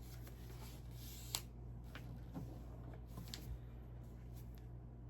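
Small plastic Lego pieces being handled and pressed together: faint rustling and a few light clicks, one sharper click about a second in, over a low steady hum.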